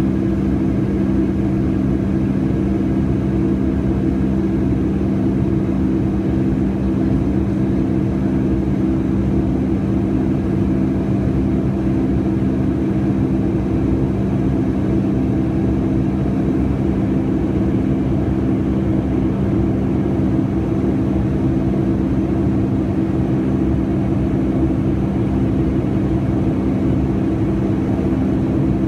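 Cabin noise inside a Boeing 757-200 in flight: a steady rush of engine and airflow noise with several constant low droning tones.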